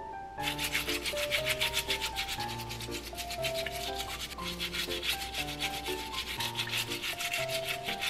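Stiff-bristled scrub brush scrubbing a live abalone in quick, even strokes that start about half a second in, cleaning the shellfish. Light background music plays underneath.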